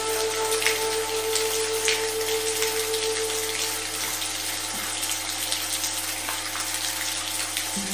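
Steady rain with a sustained electronic drone of several held tones beneath it; the tones shift to a new chord just before the end.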